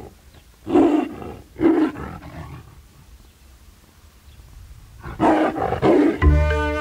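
Recorded tiger roaring: a roar at the start, two more about a second apart, then a run of growling roars about five seconds in. Music with flute and percussion starts near the end.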